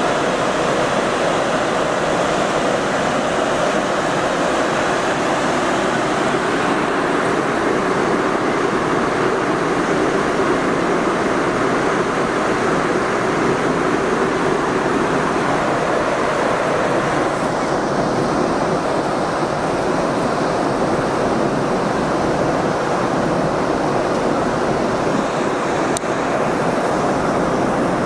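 Steady rushing noise of a car ferry under way, heard from its open top deck, even and unbroken throughout.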